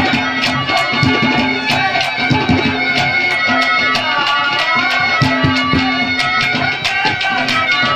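Instrumental Haryanvi folk music played live: hand drums beat a steady rhythm under a sustained reed drone and a melody that bends up and down.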